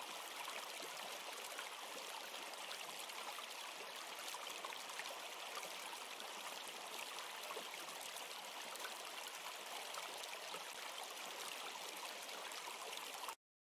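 A steady, even rushing hiss like running water, cutting off suddenly near the end.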